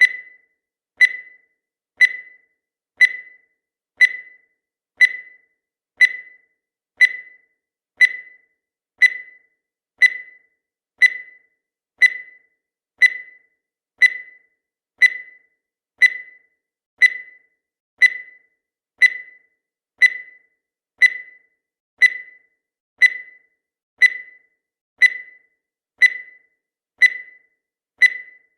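Countdown timer sound effect: a short, high-pitched beep once every second, each fading quickly, in a steady one-per-second rhythm.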